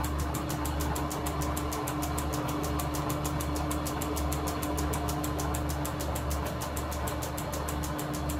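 Vintage Lorch bench lathe running, its spindle driven by a flat leather belt: a steady motor hum and tone with rapid, even ticking at about seven a second.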